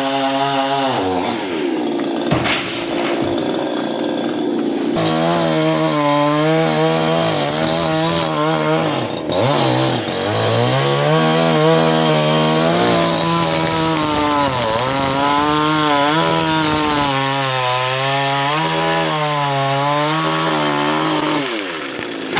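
Chainsaw running under load while cutting coconut wood, its revs sagging and picking up again over and over, dipping lowest about ten seconds in and again just before the end.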